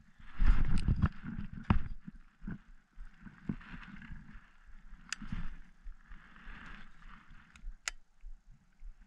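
Baitcasting reel being cranked in short spells, a light geared whir, with sharp clicks and knocks from handling the rod and reel. A loud rustling burst comes about half a second in.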